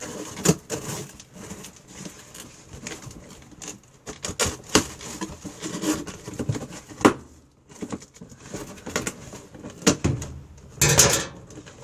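Packing tape being ripped off a cardboard box and the cardboard being pulled open by hand: irregular crackling, ripping and scraping, with a louder rip near the end.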